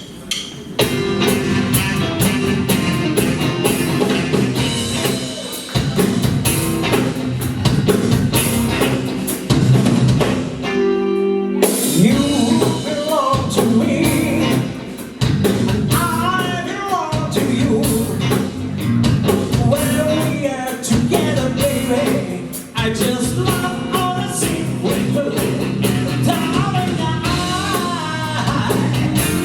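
Live band playing a blues-rock number with drum kit, guitar and bass, and a wavering lead voice or instrument over it. A little before halfway the band drops to a short held chord, then comes back in.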